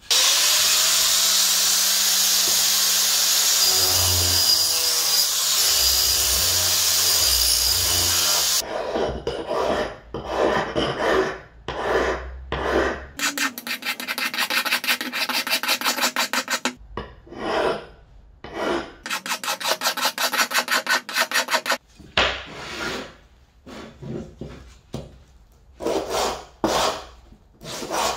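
A steady, loud rushing noise lasts about eight seconds and cuts off sharply. Then a flat hand file rasps across a freshly cast metal axe head in runs of quick, even strokes with short pauses between them. Near the end the head is rubbed on sandpaper.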